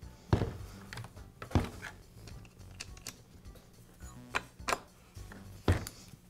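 Steel T-handle bar wrench clinking against the chainsaw's bar-mounting nuts as they are tightened: a handful of sharp metallic clicks and knocks, over soft background music.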